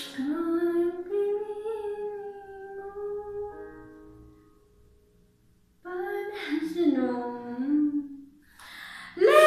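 A woman singing a slow melody, holding long notes, in two phrases with a short pause between them.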